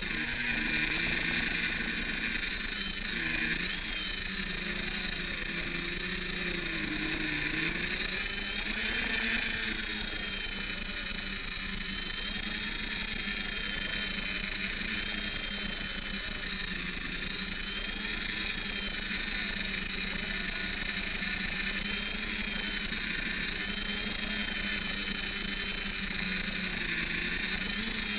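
Brushless motors and propellers of a DJI F550 Flame Wheel hexacopter whining in flight, heard from a camera mounted on its frame. The pitch of the whine wavers up and down as the motors speed up and slow down, over a constant high whistle.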